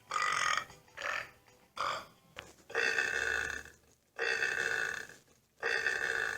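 A man burping repeatedly: about six belches in a row, the first three short and the last three longer, about a second each.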